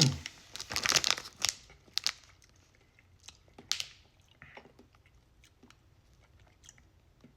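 Plastic candy packaging crinkling as it is handled: a few rustling bursts in the first two seconds, then scattered short rustles and clicks that fade out after about four and a half seconds.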